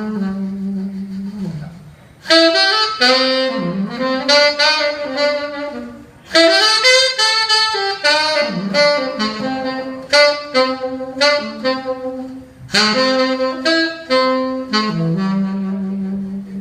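A saxophone playing alone during a sound check: quick phrases of single notes that open on a held low note, with short pauses between phrases.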